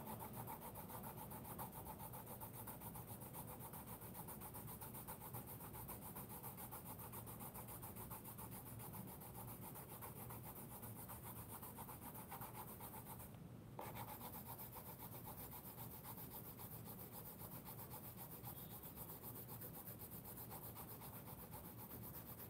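A Navneet Yuva yellow coloured pencil rubbing across sketchbook paper in quick back-and-forth shading strokes, faint and continuous. The pencil is layering yellow over an orange-to-green gradient to blend the colours. There is a brief break about halfway through.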